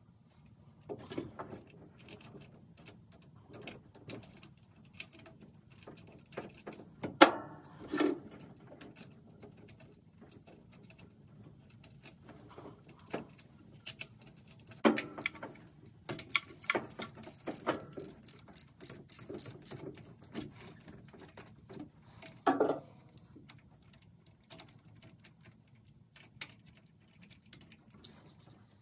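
Hand tools and metal parts clicking, clinking and rattling in an engine bay as the spark plugs of a 351 Windsor V8 are changed, with a few sharper metallic knocks, the loudest about seven and fifteen seconds in.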